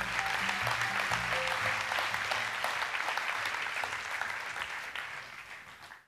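Audience applauding over background music, fading out near the end.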